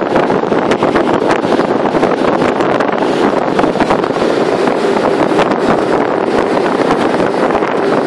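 Loud, steady rush of wind buffeting the microphone from a vehicle moving at highway speed, with crackling gusts and the road and vehicle noise underneath.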